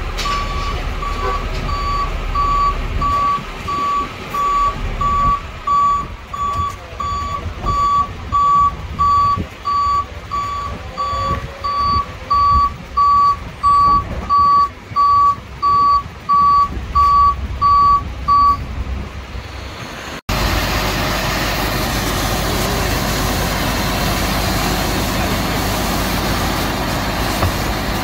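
A heavy vehicle's reversing alarm beeping steadily, about one and a half beeps a second, over engine noise, and stopping about eighteen seconds in. After an abrupt cut, a steady engine rumble.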